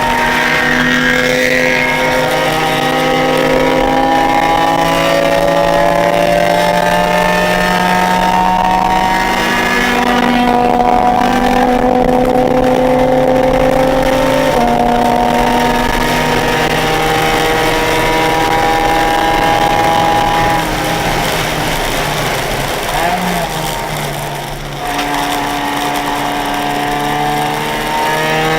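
Track car's engine heard from inside the car at speed, its pitch slowly climbing under hard acceleration with a couple of steps in pitch as gears change. About 20 seconds in it eases off for a corner, with a short blip of revs, then pulls hard again near the end.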